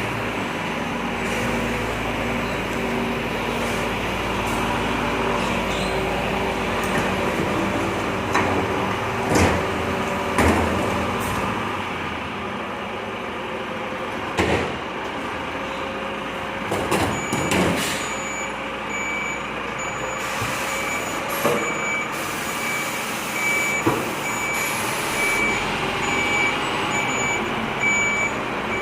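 Heavy truck running steadily, with several short sharp hisses or knocks scattered through. From a little past halfway, a steady repeating beep joins it.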